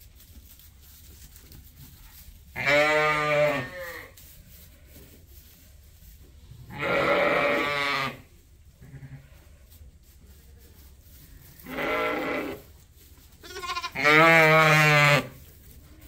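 Suffolk sheep bleating: four loud, drawn-out bleats, each about a second or more long, a few seconds apart.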